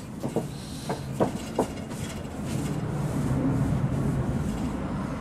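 A few light knocks of bare feet on wooden decking in the first couple of seconds, then a low steady rumble through the second half.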